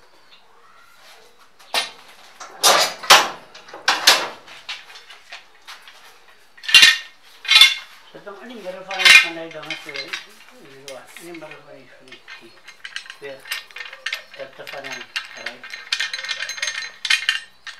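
Workshop tools and hardware being handled: a few sharp metallic clanks in the first half, then a fast run of small clicks and rattles near the end.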